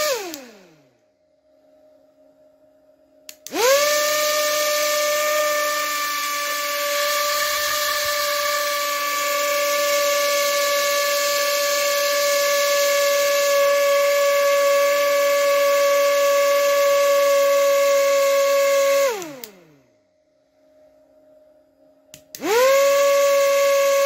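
Small high-speed drone DC motor spinning a plastic propeller off a supercapacitor, running with a steady high whine. It winds down with falling pitch just after the start. About three and a half seconds in it switches on with a click and spins up almost instantly. It winds down again about nineteen seconds in, then clicks on and spins up once more about twenty-two seconds in.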